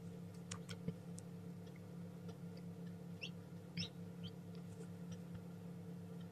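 A chick peeping twice, short high chirps about three and four seconds in, over a steady low hum, with a few faint clicks in the first second or so.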